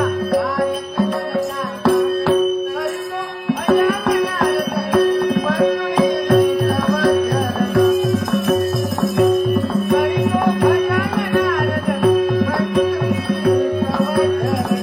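Bhajan music without words: a hand drum beats a steady rhythm under a held drone note, with a melodic line that bends up and down in pitch.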